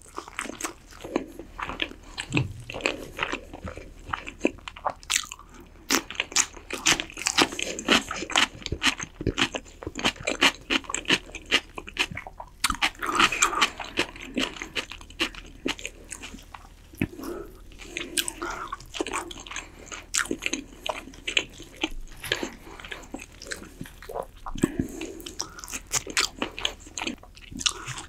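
Close-miked eating of roast chicken: steady wet chewing and biting with irregular crunches and crackles, mixed with the meat being torn apart by gloved hands.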